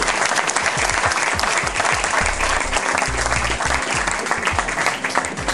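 A small audience applauding steadily, many hands clapping at once.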